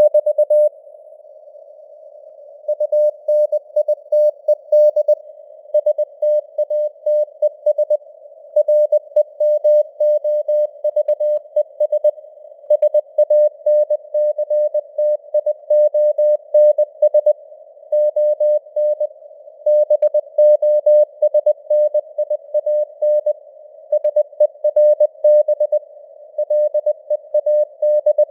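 Morse code sent at 20 words per minute: a single steady tone keyed on and off in dots and dashes with longer pauses between words, spelling out news headlines. A faint band of simulated radio hiss sits around the tone.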